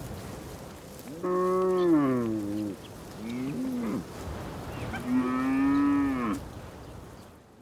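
Cattle mooing: three calls, the first falling in pitch, a short second one, and a longer third.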